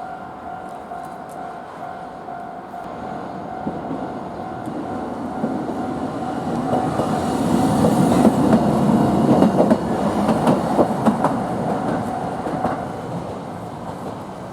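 Toden Arakawa Line tram passing over a level crossing, its wheels clacking over the rail joints; it grows loudest about halfway through and fades near the end. A steady ringing tone, the crossing's warning bell, sounds until the tram has gone by.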